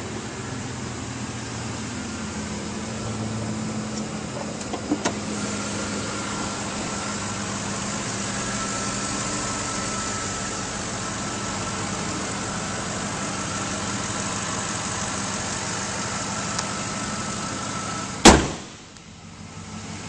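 2008 Ford F-150's 5.4-liter V8 idling steadily through its custom dual exhaust. Near the end there is one sharp thump, after which it is much quieter.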